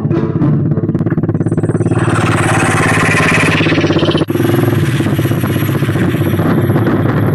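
Motorcycle engine running with a fast, even exhaust pulse, with a swell of hiss about two seconds in and a brief dropout a little past four seconds.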